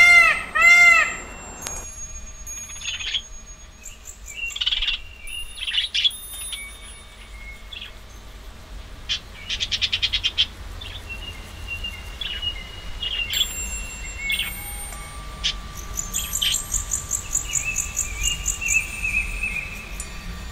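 A bird gives loud repeated calls, about two a second, for the first two seconds. These stop abruptly, and a mix of birdsong follows: scattered chirps and whistles, a fast trill about ten seconds in, and a longer warbling phrase near the end.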